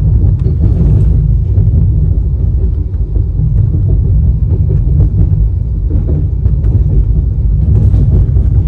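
Express passenger train running at speed, heard from on board: a loud, steady low rumble with a few faint knocks through it.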